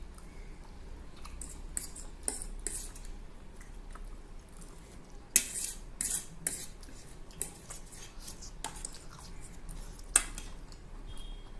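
Cutlery clinking and scraping against dishes as instant noodles are eaten quickly, in irregular sharp clicks, with two louder knocks about five and ten seconds in.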